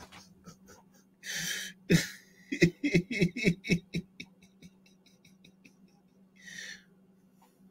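A man laughing to himself: a breathy exhale, then a couple of seconds of quick chuckles, about five a second, and another breathy huff near the end.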